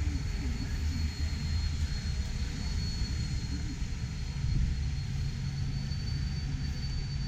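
Steady low rumble and hum of a large, crowded exhibition hall, with a thin steady high whine and faint background voices.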